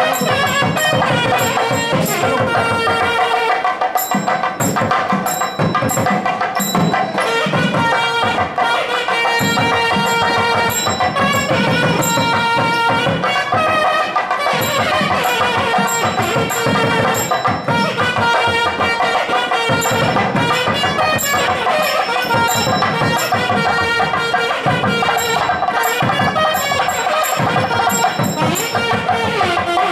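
South Indian temple music: a nadaswaram (double-reed pipe) playing a continuous, gliding, ornamented melody over thavil drum strokes.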